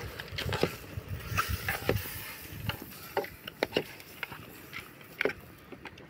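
Irregular light clinks and scrapes of a spoon stirring split peas in a metal cooking pot, over a low rumble.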